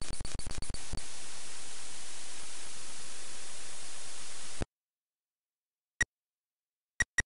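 ZX Spectrum tape-loading signal played by the EightyOne emulator: a quick run of short pulses, then a steady hiss for about three and a half seconds as the Beta Basic code block loads, cutting off suddenly. A few single short clicks follow near the end, the Spectrum's keypress clicks as the next LOAD command is typed.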